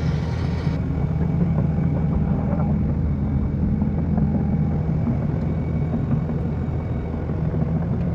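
Excavator's diesel engine running steadily with an even low rumble.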